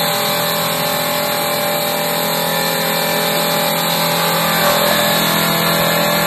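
A stone fringe machine for blind (tactile paving) stone running steadily: its electric motor and belt drive give a continuous mechanical hum with many steady tones over a dense whirring noise.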